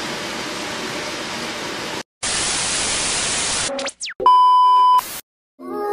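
Faint room hiss, then an abrupt edited transition effect: a burst of TV-style static, a couple of quick falling sweeps, and a loud steady beep, followed by a moment of silence. Music with singing begins near the end.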